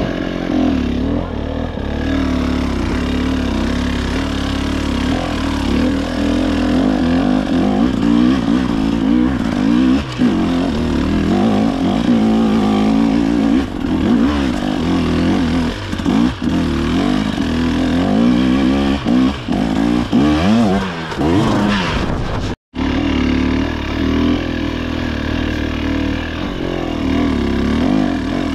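KTM EXC 300 TBI two-stroke enduro engine running, its revs rising and falling again and again under the throttle. There is a split-second break in the sound about three-quarters of the way through.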